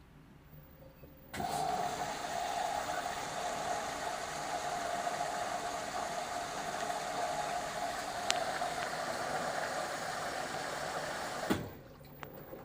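LG direct-drive washing machine's drain pump switching on about a second in and running steadily for about ten seconds, a steady whine over a rush of noise, then cutting off abruptly with a click near the end.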